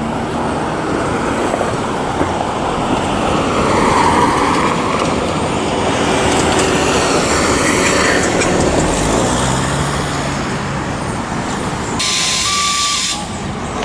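Road traffic on a city street: cars and trucks passing, one swelling up and fading away a few seconds in. Near the end comes a brief hiss with a short tone in it.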